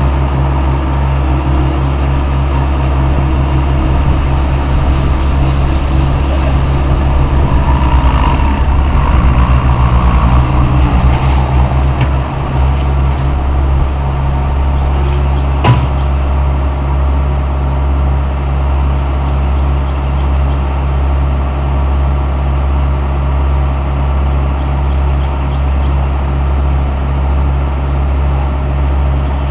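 Diesel engine of a Bobcat T180 compact track loader running, the pitch and rattle varying while it works dirt for about the first twelve seconds, then settling into a steady idle. A single sharp knock about sixteen seconds in.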